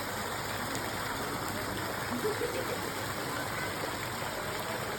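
Steady rush of flowing water, with faint voices in the background.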